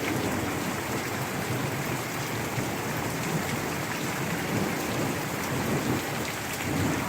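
Heavy rain pouring down steadily, with thunder rumbling low underneath and swelling now and then.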